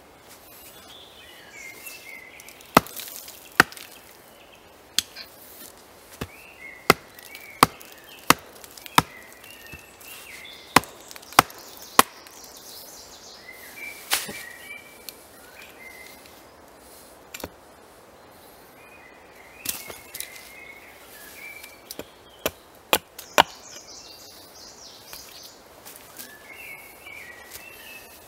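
Hatchet chopping into a peeled wooden log stood on a chopping block: about twenty sharp wooden chops, irregularly spaced, some in quick pairs or threes with pauses between.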